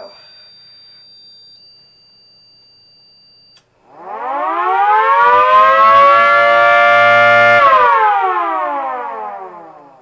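Miniature 3D-printed 2T22 tornado siren, driven by a DC brushed motor, winding up about four seconds in, then sounding a loud steady wail of several pitches at once for a few seconds, then winding down in a short falling glide. This is one on-cycle of its danger signal. Before it, a faint steady high tone is heard.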